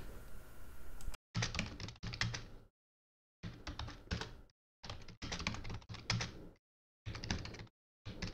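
Typing on a computer keyboard: short runs of rapid keystrokes, each run cutting off abruptly into dead silence before the next.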